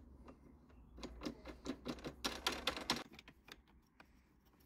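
Rapid clicking as the plastic locking knob on the Makita DLM330 mower's folding handle is turned and the metal handle is handled. The clicks come several a second for about two seconds and are loudest near the middle.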